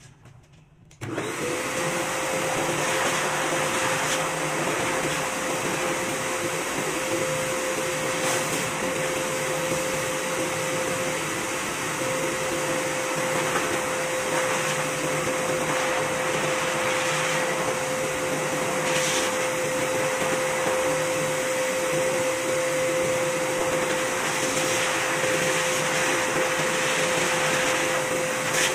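Hose-fed pet grooming blower (high-velocity dryer) switching on suddenly about a second in, its motor spinning up, then running steadily with a constant whine and rush of air. It is being blown through a long-haired cat's coat to lift out loose undercoat.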